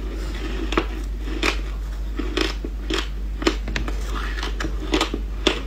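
A mouthful of frozen ice topped with frozen passion fruit being chewed, with sharp, crackly crunches about once or twice a second as the ice breaks between the teeth.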